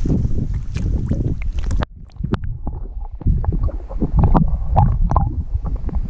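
Water sloshing and splashing around an action camera dipped into a lake, with knocks from handling. About two seconds in the sound turns suddenly muffled and duller as the camera goes fully under, leaving underwater gurgling, rumbles and knocks.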